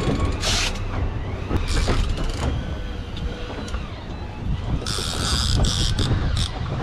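A boat's outboard engines running, with a steady wind rumble on the microphone and several short bursts of hiss.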